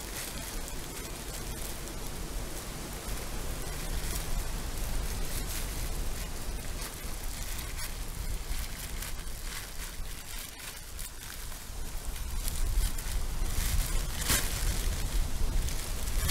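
Steady outdoor hiss with wind rumbling on the microphone and scattered small crackles and taps, a little louder in the last few seconds.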